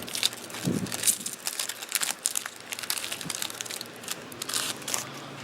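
Plastic trading-card pack wrapper crinkling and crackling as it is handled and opened, in many quick irregular crackles.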